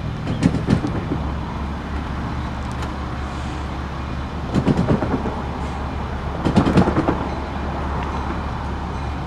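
Diesel locomotives of an approaching freight train rumbling low and steady in the distance. Short clusters of sharp clicks come about half a second, five seconds and nearly seven seconds in.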